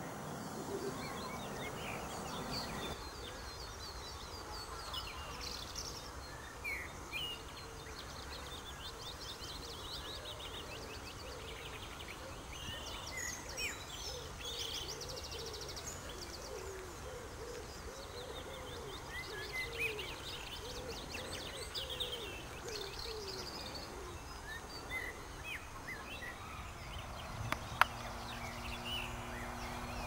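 Outdoor birdsong from several birds: short chirping and warbling phrases over a steady background hiss, with a repeated low hooting call underneath for much of the time. Two sharp clicks near the end.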